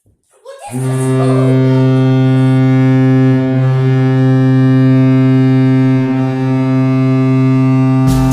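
Hockey goal horn sounding one long, steady, deep blast for about seven seconds, marking a goal. Music with a beat starts just as the horn ends.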